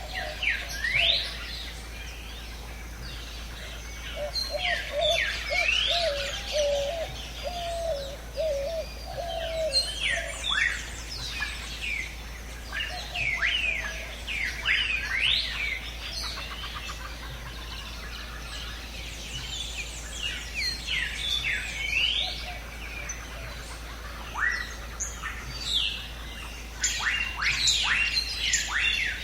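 Several wild birds chirping and calling, with quick sweeping chirps coming in clusters and a lower warbling call from about four to ten seconds in.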